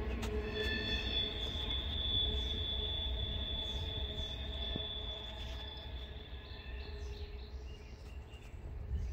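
Wheels of a distant Norfolk Southern intermodal freight train squealing in a high, steady, several-toned squeal over a low rumble. It fades slowly as the train moves away.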